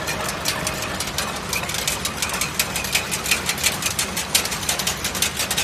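Automatic chain link fence machine running: a steady low hum with a quick, irregular run of light clicks from its moving parts.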